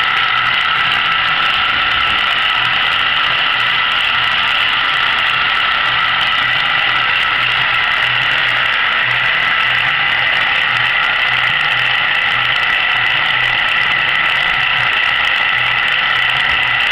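Small electric gear motors turning a row of rotisserie spits, running with a steady mechanical whine made of several high tones over a low hum.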